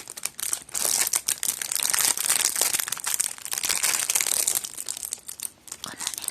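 Plastic snack wrapper of a rice cracker crinkling as it is handled, a dense run of sharp crackles that thins out near the end.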